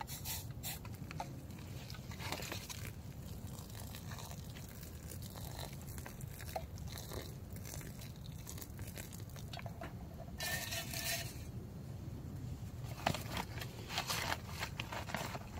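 Boiling water poured from a small metal pot into a foil-lined freeze-dried meal pouch, with quiet rustling and crinkling of the pouch. There is a brief louder burst a bit past the middle, and more crinkling near the end as the pouch is handled.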